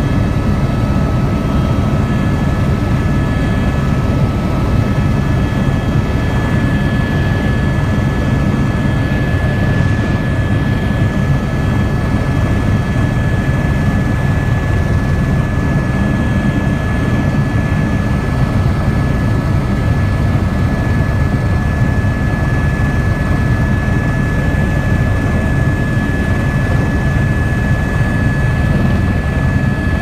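Aircraft engine noise heard from inside the cabin: a steady deep drone with a thin, constant high whine over it.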